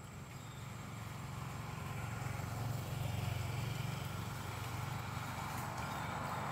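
Low engine rumble of a motor vehicle, getting gradually louder.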